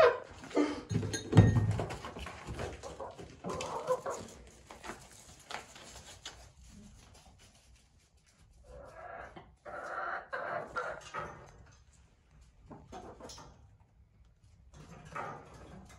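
Domestic hens clucking in short spells, loudest about nine to eleven seconds in, with scattered small clicks. A loud thump comes about a second and a half in.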